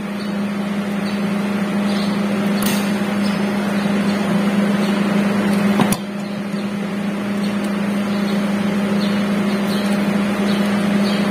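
Steady low machine hum, with a few scattered light clicks and one sharper click about six seconds in.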